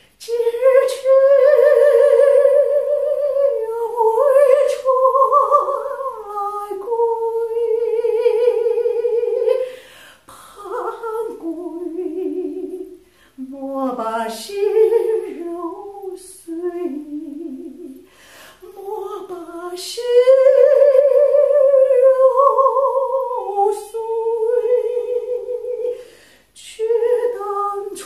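A woman singing a slow melody without words, unaccompanied, in long held notes with vibrato and a few short pauses for breath.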